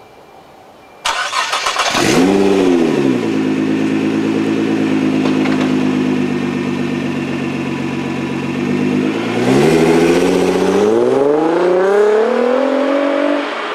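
Nissan GT-R R35's twin-turbo V6 through a Trust Power Extreme R exhaust. About a second in the starter cranks and the engine catches with a rev flare, then settles to a steady idle. Near the end the car pulls away, its pitch rising, dipping once and rising again as it drives off.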